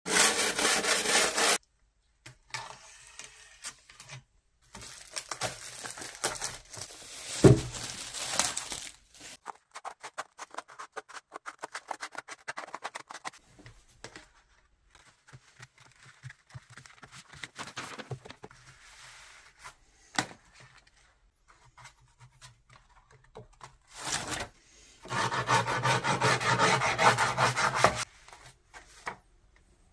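Handsaw rubbing and scraping along skateboard grip tape on the wooden deck, in bursts of rapid strokes with short pauses between; the loudest stretch comes near the end.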